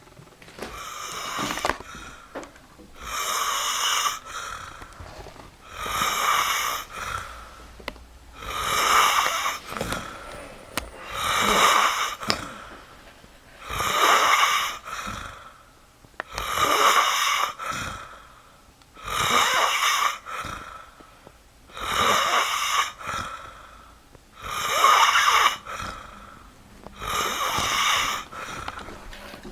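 Snoring in a steady rhythm: about eleven snores, one every two and a half to three seconds, each lasting about a second.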